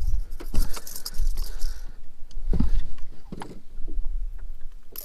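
Jangling rattles and knocks as a just-landed smallmouth bass thrashes in the boat with a rattling lipless crankbait (Strike King Red Eye Shad) hooked in it, over a low rumble. The jangling is thickest in the first two seconds, and there is a heavier knock a little past halfway.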